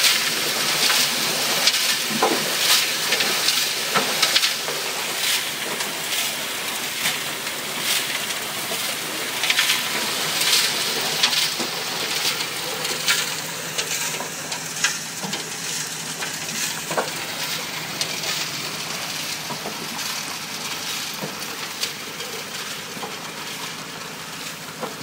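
Gravel and water washing through a placer-mining trommel and sluice: a steady rush of spraying water with stones clattering and rattling, over a low steady hum.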